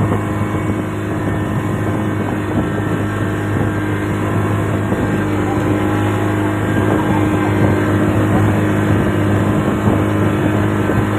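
Boat engine running at a steady drone, with wind and water noise over it.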